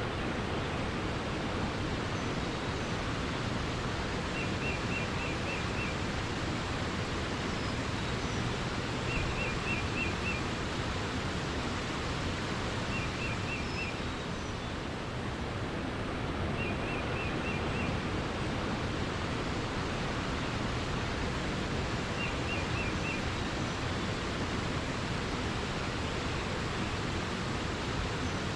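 Steady rushing of flowing water. Over it, a small bird repeats a short phrase of five or six quick high notes about every four seconds, and a few fainter chirps sound higher up.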